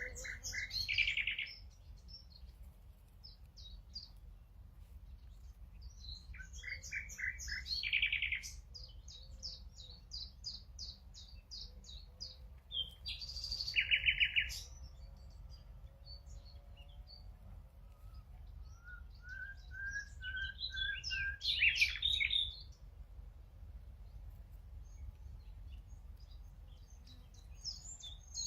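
A nightingale singing in separate phrases of rapid repeated notes and trills, with pauses between them. The loudest phrases come about a second in and around eight, fourteen and twenty-two seconds, and shortly before the last of these there is a short run of whistled notes that climb step by step. A steady low rumble sits underneath.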